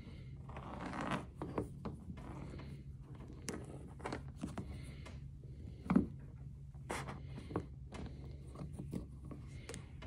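Allen wrench slowly turning a threaded bow-light fitting into a plastic kayak hull: faint scratching and scraping with scattered small clicks, the sharpest click about six seconds in, over a low steady hum.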